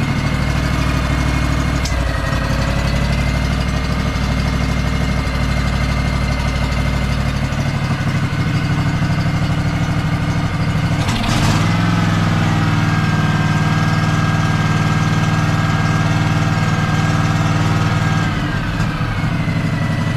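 Honda 16.5 hp twin-cylinder engine on a Craftsman DLT3000 lawn tractor running steadily on its own, just after starting. About eleven seconds in there is a brief rush of noise and the engine's speed shifts a little, then it settles and runs steadily again.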